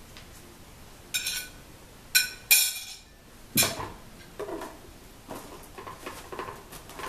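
A metal spoon clinks three times against a glass plate, ringing each time, as mango is scraped off into a plastic blender jar. About halfway through comes a dull knock, then lighter plastic knocks and rattles as the lid is fitted onto the blender jar.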